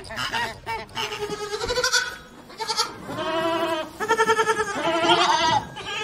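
Flamingo honking briefly at the start, then a lamb bleating several times, long quavering bleats of about a second each.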